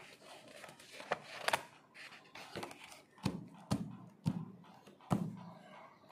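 Handling noise from a phone held close to the microphone: about seven irregular knocks and clicks, the later ones with a dull thump, as a hand moves against the phone.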